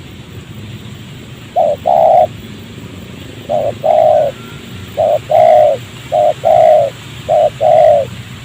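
Spotted dove cooing: five two-part coos in a row, each a short note followed by a longer, louder one, with a steady low background hum.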